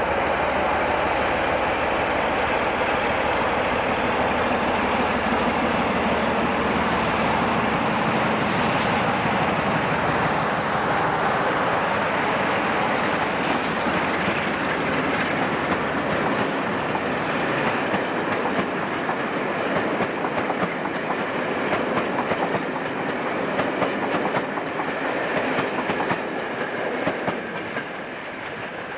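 British Rail Class 47 diesel locomotive, with its Sulzer twelve-cylinder engine, passing close by with a train of passenger coaches. In the second half the wheels click rhythmically over the rail joints, and the sound falls away near the end as the train draws off.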